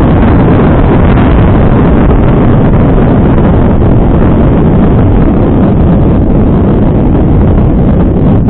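Loud, steady wind rush on a helmet camera's microphone during a fast mountain-bike descent, mixed with the rumble of knobby tyres on a dirt and gravel trail.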